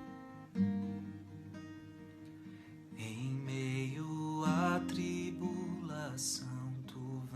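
Acoustic guitar playing a slow introduction of plucked and strummed chords; about three seconds in, a singing voice comes in over the guitar.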